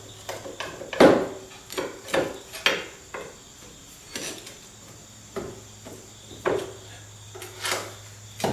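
Irregular knocks and clunks, about ten of them and the loudest about a second in, as the Rolls-Royce Phantom III's front suspension cross member is worked loose from the chassis, over a steady low hum.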